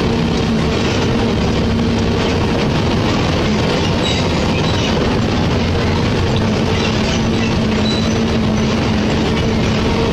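Vehicle driving on a rough gravel road, heard from inside the cab: a steady engine drone mixed with tyre noise over the loose stones.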